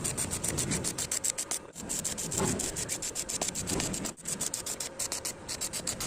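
Rapid, even rasping or scraping, about ten strokes a second, of something being worked by hand or by a tool.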